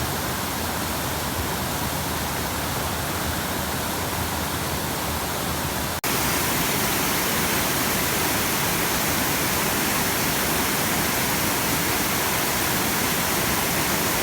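Water of a small mountain creek rushing steadily over cascades and miniature falls. The sound cuts out for an instant about six seconds in and returns slightly louder and brighter.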